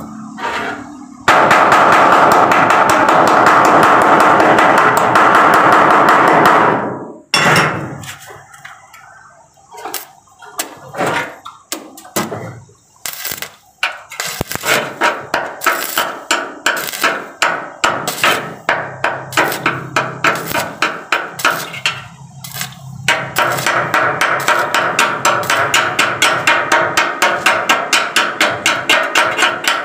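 Hammer blows on a car's rusty steel roof frame: scattered knocks at first, then rapid, even strikes of about three a second through the second half. Near the start there is a loud steady noise for about five seconds, and a steady noise returns under the hammering near the end.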